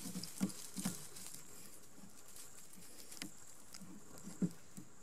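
Cord being wrapped around thin wooden poles for a tripod lashing: faint rustling with a few soft knocks of the poles and hands.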